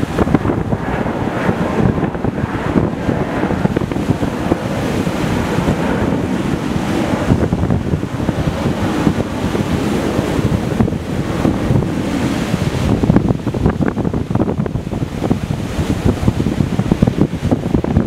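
Sea surf breaking on a rocky shore: a continuous wash of waves that swells and eases as each breaker comes in, with wind buffeting the microphone.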